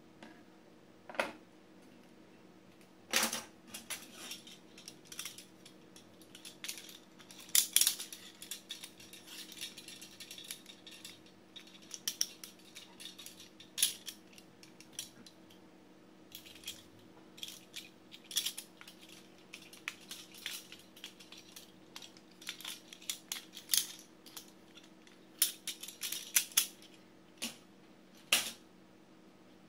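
Hard plastic toy pieces being handled and set down on a wooden tabletop: irregular clicks, clacks and light rattles, including plastic toy handcuffs being worked.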